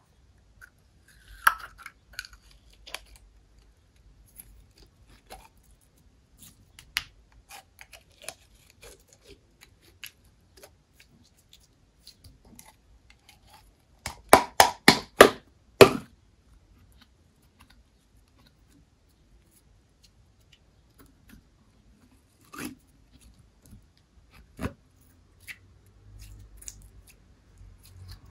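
Scattered small clicks and taps of hand-handling, with a quick run of about six sharp, loud clicks about halfway through and a couple of duller knocks later on.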